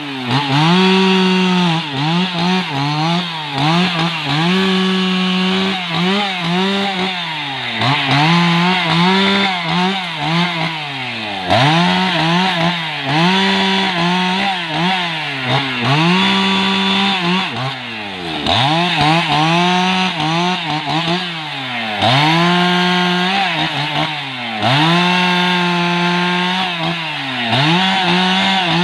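Husqvarna 288 XP two-stroke chainsaw cutting rubberwood logs. The engine revs up to full speed and drops back again and again, about every second and a half, as the chain goes through the wood.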